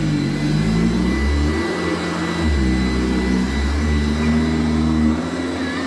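Vacuum cleaner running, with a steady high whine over a motor hum that shifts up and down in pitch every second or so as its airflow changes.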